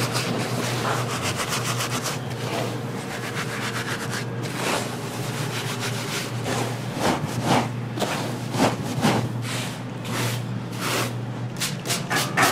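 Dry, rustling scrape of gloved hands rubbing and tossing panko breadcrumbs in a metal sheet pan, with handfuls lifted and dropped. Near the end, a trigger spray bottle spritzes in quick pumps, about four or five a second, over a steady low hum.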